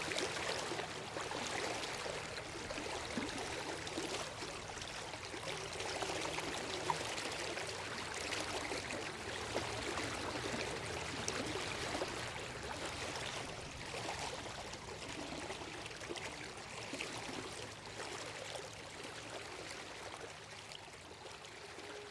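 Flowing river water: a steady rushing with small ripples and splashes throughout.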